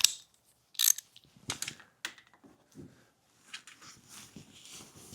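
Scattered metal clicks and clinks of a hand tool being worked onto the AC compressor's mounting bolt, with a quicker run of small ticks near the end.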